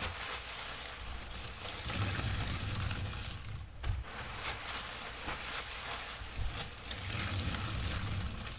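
A wet sponge full of fabric-softener suds being squeezed and rinsed: squelching foam and running, dripping water, swelling louder twice, about two seconds in and again near the end, with small sharp clicks mixed in.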